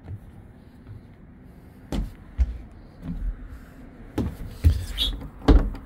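Several dull thumps and knocks at irregular intervals, starting about two seconds in, the loudest near the end.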